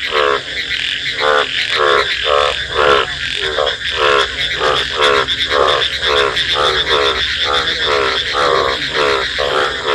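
Frogs calling from a pond after rain: a steady run of short, rasping, pulsed croaks, about two or three a second, over a continuous high-pitched trilling chorus.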